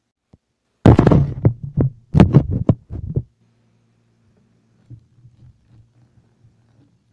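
Loud handling noise: a rapid cluster of knocks and rustles right against the microphone, starting about a second in and lasting some two seconds. A faint low hum follows, with a few soft plastic-bag rustles.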